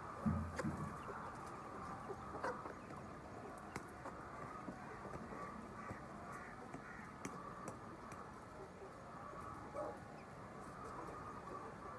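Steady chatter of a large flock of poultry birds, with scattered sharp clicks and a low thump about half a second in.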